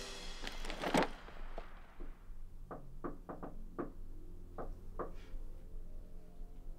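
Knocking on a door: about seven sharp knocks in quick, uneven groups, after music fades out in the first second.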